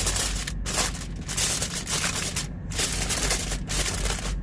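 Aluminium foil being crinkled and folded by hand around a Cornish hen, in irregular spurts of crackling with brief pauses. A faint low hum sits underneath.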